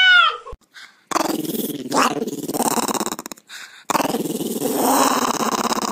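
Small white fluffy dog growling in two long growls of about two seconds each, with a short break between them. Just before, a ginger-and-white cat's drawn-out meow trails off.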